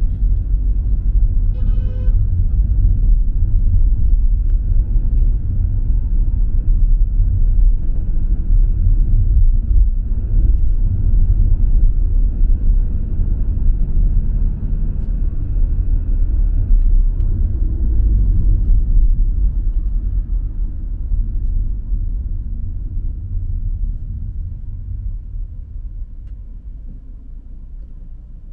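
A car driving, with a steady low engine and road rumble that fades away over the last several seconds. A brief tone sounds about two seconds in.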